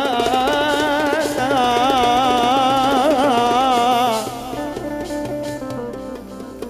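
Oriental keyboard playing an ornamented mawwal melody with heavy vibrato over a fast tremolo pluck, between the singer's lines. It drops to softer held notes about four seconds in.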